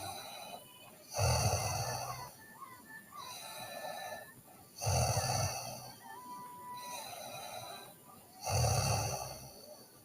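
A teenage girl snoring in her sleep: three loud snores on the in-breath about three and a half seconds apart, with softer breaths out between them.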